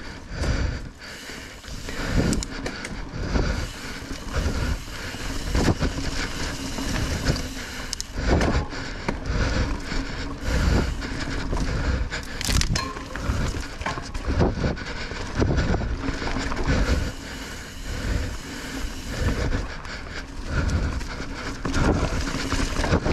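A mountain bike being ridden over a rough dirt trail. The tyres rumble steadily and wind rushes on the microphone, while the bike jolts and rattles with irregular thumps as it hits bumps.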